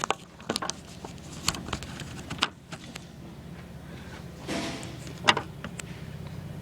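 Model train running on three-rail track, its two coupled diesel locomotives' electric motors giving a steady low hum, broken by several sharp clicks and clacks.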